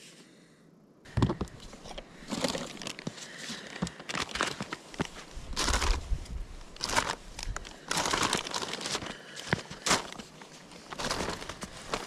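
A plastic bag crinkling and rustling in irregular bursts as it is handled, starting about a second in.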